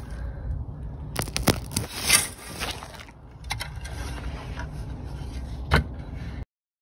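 Scrapes and sharp knocks of a phone camera being handled, over a low rumble on its microphone. Several knocks come between about one and three seconds in and one more near the end, then the sound cuts off abruptly.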